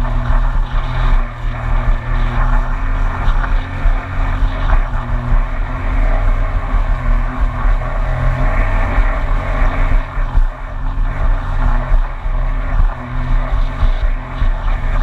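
2019 Yamaha EX WaveRunner's three-cylinder four-stroke engine running steadily at cruising speed. Water rushes and splashes against the hull as it crosses light chop.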